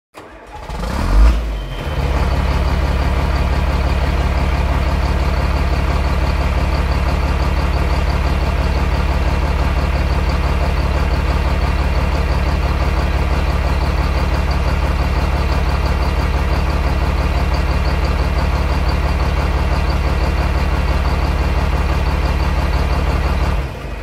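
An engine starts about a second in, then runs steadily at one constant speed with a deep, even hum, and cuts off abruptly near the end.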